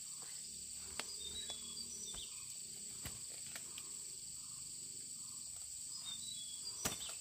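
Steady high-pitched drone of insects chirring, with a few short bird chirps. Several light clicks are heard, and one sharper click comes near the end.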